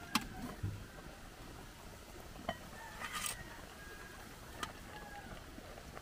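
Quiet background with a few faint, sparse clicks and one brief rustle about three seconds in.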